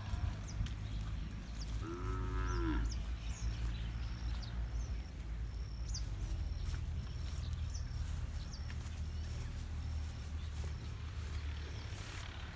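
A bull mooing once, about two seconds in: a call of about a second that rises and falls in pitch. Under it runs a steady low rumble, with faint short high chirps scattered through.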